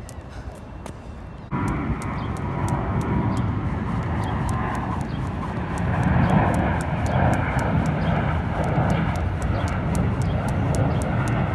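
Jump rope slapping the asphalt in a fast, even rhythm, about four ticks a second. Under it, a loud steady rumbling noise starts abruptly about a second and a half in.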